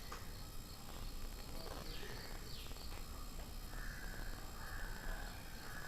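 Faint background of insects chirping, an even high chirp repeating about three times a second, with a few faint bird calls.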